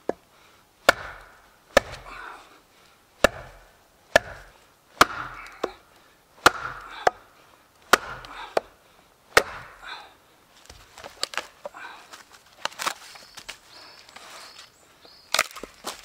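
A wooden baton knocking on the back of a hatchet set into the end of a log, about eleven sharp strikes over the first ten seconds, driving the blade down along a crack to split the log. Then quieter cracks and rustles as the wood gives, and one more sharp knock near the end as the log splits in two.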